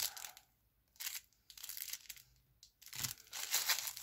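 Paper wrapping crinkling and tearing as a small package is unwrapped by hand, in short irregular bursts with brief pauses between them.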